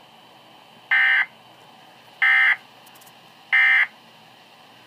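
Emergency Alert System SAME digital data tones: three short, identical bursts of warbling two-tone data, a little over a second apart. Three short bursts like this are the end-of-message code that closes an alert.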